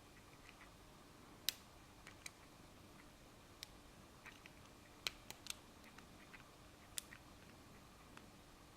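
Faint, irregular small metallic clicks and ticks of a lock pick working the pin stack of a Master Lock Pro Series padlock under tension, the sharpest about a second and a half in and a quick cluster around five seconds in.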